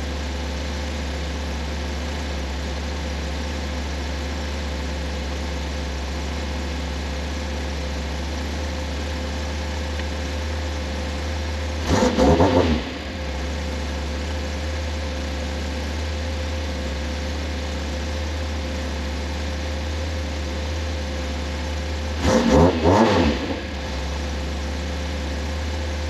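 Fiat X1/9 inline-four engine idling steadily while its idle speed is set, with its ignition timing freshly set. It is briefly revved twice, about halfway through and again near the end, then drops back to idle.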